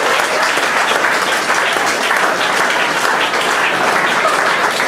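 An audience in a hall applauding and cheering steadily, with scattered voices through the clapping.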